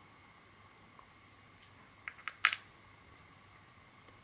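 Small plastic and metal parts of a 3.5 mm jack plug clicking lightly as they are handled and fitted together. There are a few separate ticks, then a sharper cluster of clicks about two and a half seconds in.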